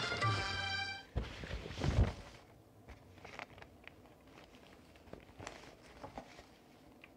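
A short musical sting separating two news items ends about a second in. Two dull thumps of handling noise near the microphone follow, the second the loudest, then only faint scattered clicks.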